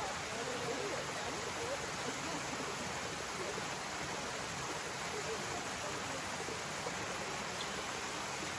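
Steady rushing of water, an even hiss that holds at a constant level throughout.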